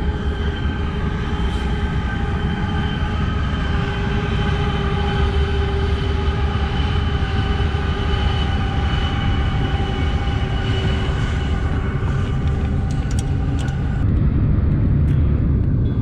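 Freight train with diesel locomotives passing: a steady low rumble with held droning tones over it. The tones stop about 14 seconds in while the rumble carries on.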